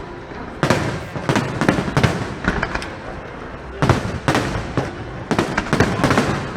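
Fireworks display: aerial shells going off one after another, a rapid string of sharp bangs and crackles with echoing tails, several loud ones about half a second to a second apart.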